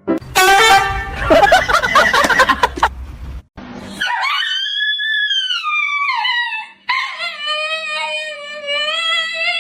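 A dog howling: two long drawn-out howls, the first sliding down in pitch, the second held steadier, after a loud, busy burst of sound with music over the first three seconds.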